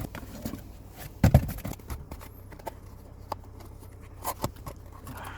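Scattered clicks and knocks of tools and parts being handled during hands-on car repair work, with one heavy thud about a second in.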